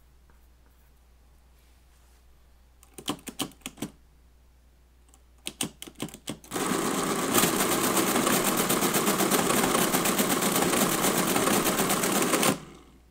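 Friden STW-10 electric rotary mechanical calculator: two quick runs of key clicks as figures are entered, then the machine starts and runs for about six seconds with a fast, even clatter as it works through the calculation, stopping suddenly when done.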